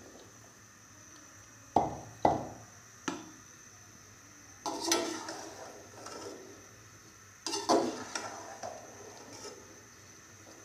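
A spoon knocking against a large aluminium pot and scraping through sliced okra in oil as it is stirred. Two sharp knocks come about two seconds in, followed by two longer stirring scrapes.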